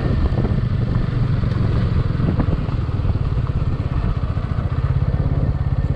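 Motorcycle engine running steadily on the move, its firing pulses heard as an even low throb.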